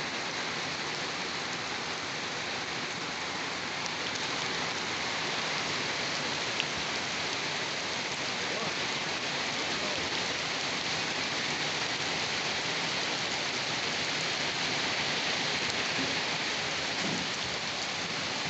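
Steady rain falling, an even hiss of drops on a surface, with one small tick about six and a half seconds in.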